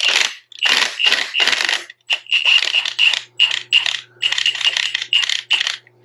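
Hand ratchet wrench spinning out a bolt on the chain tensioner, a burst of metallic clicking on each back-swing, about three a second, stopping near the end.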